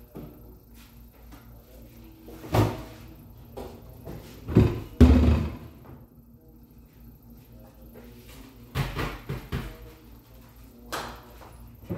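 Kitchen handling noises: a series of separate knocks and thumps as things are moved and set down, the loudest a heavy thump about five seconds in, with a faint steady hum underneath.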